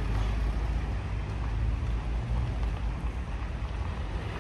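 Street ambience: a steady low rumble of traffic with an even wash of noise.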